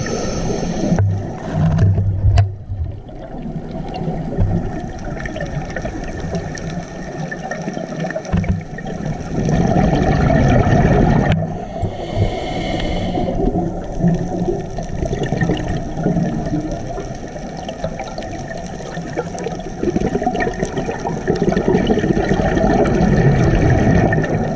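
Scuba divers breathing through regulators underwater: rumbling, gurgling surges of exhaled bubbles, with a brief hiss of an inhaled breath about twelve seconds in.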